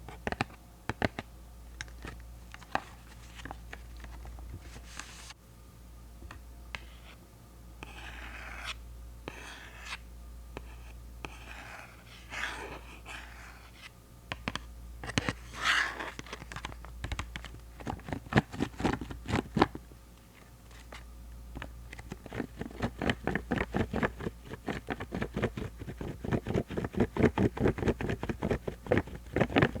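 ASMR tapping and scratching on Pentel rubber eraser caps: scattered single taps, a few short scratchy rubs in the middle, then a fast, even run of rapid taps over the last third.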